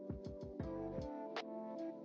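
Background music: held chords over a steady drum beat.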